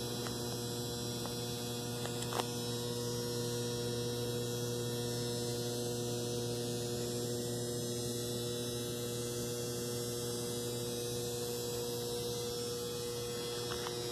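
Steady electrical mains hum with a few evenly spaced overtones over a faint hiss, and a single faint click a little over two seconds in.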